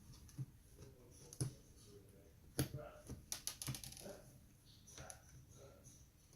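Sharp plastic clicks and taps from hands working on a laptop's replacement LCD panel and screen housing. The loudest comes about two and a half seconds in, followed by a quick run of small clicks.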